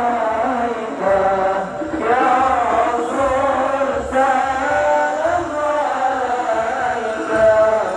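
Voices chanting a sholawat, a devotional song in praise of the Prophet, in a slow, continuous melodic line.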